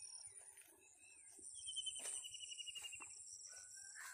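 Faint wild birdsong over a steady high-pitched insect drone. One bird gives a trill that falls slightly in pitch for about a second and a half, with shorter calls and whistles before and after it.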